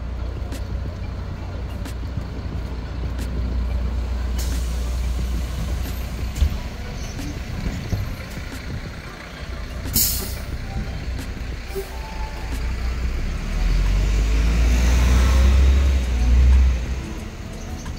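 Heavy vehicle engine rumbling steadily, with a short sharp hiss about ten seconds in and the rumble swelling louder for a few seconds near the end.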